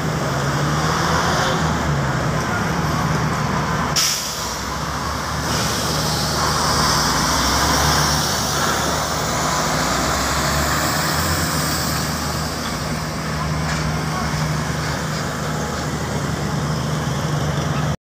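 Heavy road traffic: diesel trucks, including a tractor unit, passing close by with their engines running steadily. A single sharp knock comes about four seconds in.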